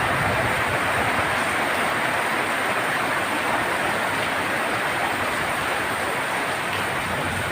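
Heavy rain falling on a tin roof: a steady, dense hiss with no breaks.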